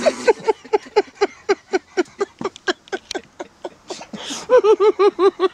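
A person laughing hard in a long run of quick ha-ha pulses, about five a second, with a louder, higher-pitched bout of laughter near the end.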